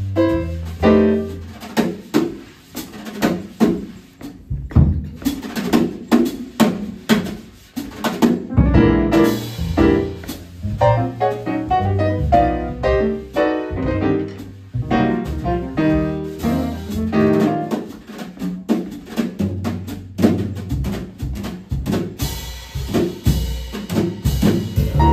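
A jazz trio of piano, upright double bass and drum kit playing a swing standard, with a walking bass line under the piano and steady drumming.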